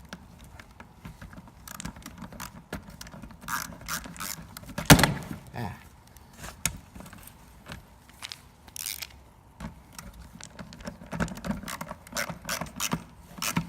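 Small plastic and metal parts of a car instrument cluster clicking, tapping and rattling as they are handled and fitted by hand, with one sharper knock about five seconds in.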